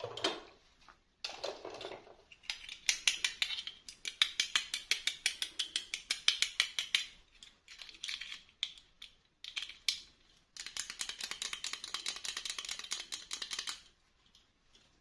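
Close-up handling of toy packaging during an unboxing: rapid crinkling and clicking, in two long runs with scattered clicks between.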